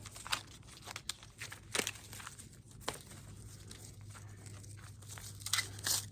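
Corn husks and leaves rustling and tearing as an ear is peeled open by hand, with scattered sharp crackles and snaps and a cluster of them near the end.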